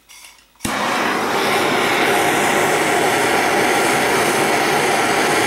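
Handheld gas torch flame burning steadily, heating a copper-to-aluminum tube joint on an evaporator coil for soldering with flux-cored aluminum solder. It starts abruptly about half a second in and holds steady.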